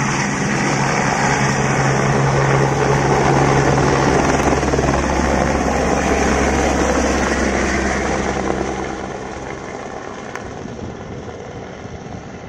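Helicopter taking off: loud rotor and turbine noise with a steady low beat as it lifts from the pad and climbs away. It fades steadily from about eight seconds in as it flies off.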